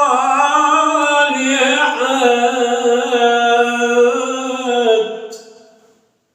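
A man's voice in melodic Quran recitation, holding one long, drawn-out and ornamented phrase ('as-salihat'). The phrase fades out about five and a half seconds in.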